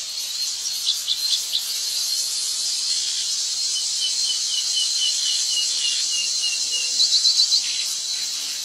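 Steady shrill drone of an insect chorus. About halfway through, a run of short chirps repeats about four times a second for a few seconds, with a few sharper chirps near the start and near the end.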